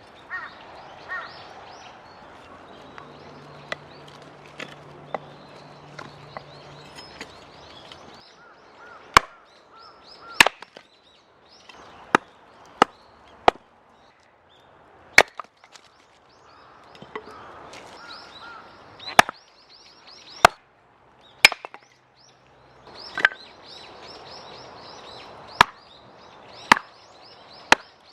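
Firewood being chopped: about a dozen sharp single strikes at uneven intervals of one to two seconds, starting about nine seconds in. Small birds chirp throughout.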